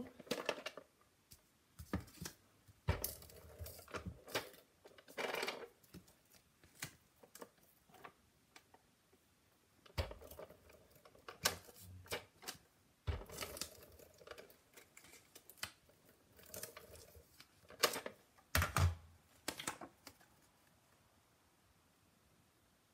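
Tape-runner adhesive dispenser being run along the backs of card stock in a series of short strokes, with irregular clicks and paper shuffling as the pieces are handled.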